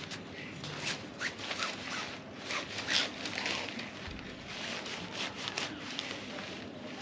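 Irregular rustling and scraping of tent fabric and poles being handled as a tent pole is fitted.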